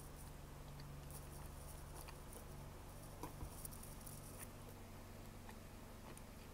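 Close-miked chewing and mouth sounds of someone eating a soft strawberry-milk doughnut: faint, irregular moist clicks and smacks, with a low steady hum underneath.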